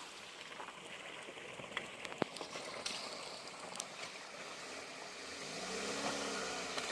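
Steady rushing hiss with a few light clicks. Near the end a car engine revs up and then falls back.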